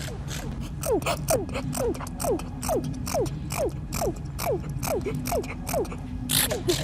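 Sci-fi blaster fire in a running firefight: short falling zapping tones two or three a second, with sharp cracks between them, over a steady low hum.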